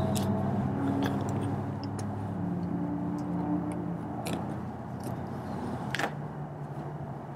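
Steady low hum of a running vehicle engine, its pitch shifting a couple of times, with a few light clicks.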